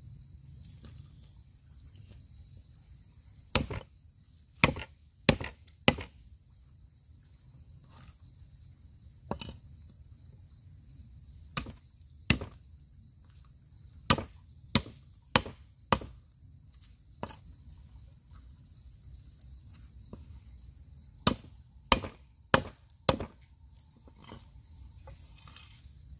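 A cleaver chopping on a wooden chopping board. Sharp knocks come in short irregular runs of two to five, with pauses between the runs.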